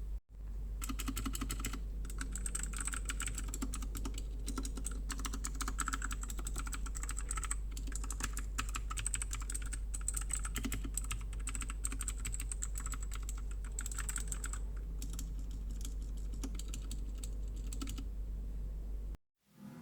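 Continuous fast typing on a Royal Kludge RK61 60% mechanical keyboard: a dense stream of keystroke clicks that stops near the end, with a steady low hum underneath.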